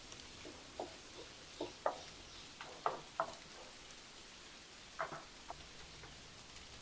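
Irregular light taps and clicks over a faint steady hiss, loudest about two, three and five seconds in.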